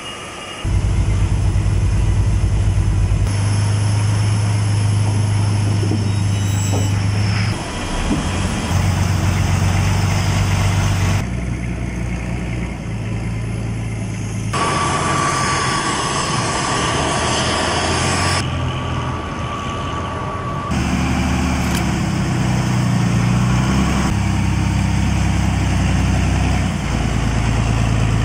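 Heavy eight-wheeled military missile launcher trucks' diesel engines running, the sound changing abruptly every few seconds. A steady high whine joins in for a few seconds midway.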